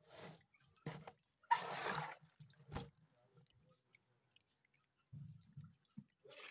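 Several short water splashes in a cut-open plastic jerrycan holding catfish in shallow water, the longest and loudest about one and a half seconds in.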